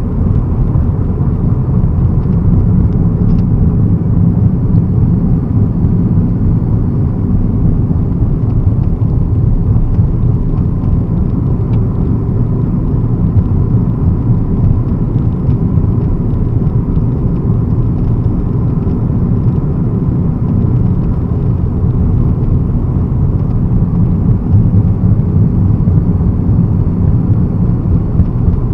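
Steady low rumble of tyre and engine noise heard inside a Mitsubishi Colt's cabin while it drives at a steady pace.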